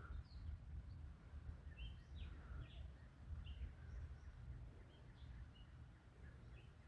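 Faint birds chirping: scattered short chirps, several a second at times, over a steady low background rumble.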